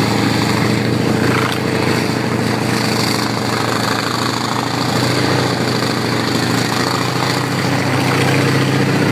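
M4 Sherman tank's engine running steadily under load as the tank drives off, a loud, rough, low drone.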